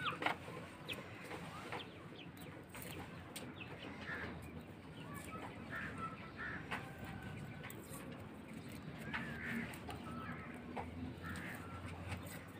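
Chickens clucking now and then, with small clicks and rustles as garlic cloves are peeled by hand. A light knock sounds just after the start, as a steel bowl is set down.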